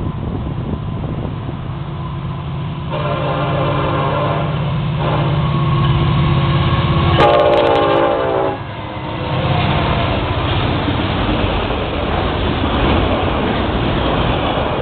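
Florida East Coast Railway freight diesels sounding their horn for a grade crossing in long blasts over the low engine rumble, the horn loudest from about seven to eight and a half seconds in as the locomotives pass. The horn then stops, and the rush and clatter of the freight cars rolling by takes over.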